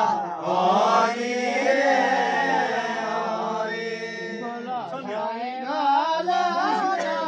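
Men singing a traditional Himachali Nati folk song, a chant-like tune of long held notes that bend and waver in pitch.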